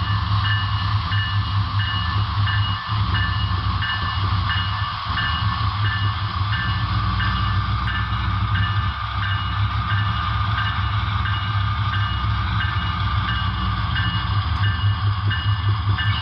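Broadway Limited Paragon 4 ES44AC HO-scale model locomotives running with their sound decoders playing a diesel engine's steady low rumble. Over it, a ringing tone repeats about twice a second.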